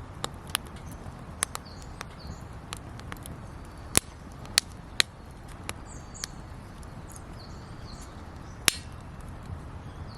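Wood campfire crackling: irregular sharp pops and snaps, a few of them loud, over a steady low hiss of burning.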